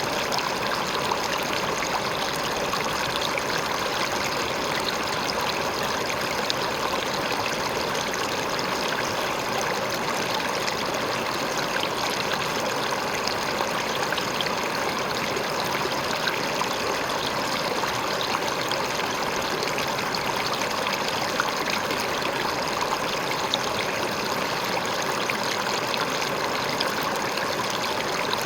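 River water flowing and splashing over a rock, a steady rushing with fine splashes throughout.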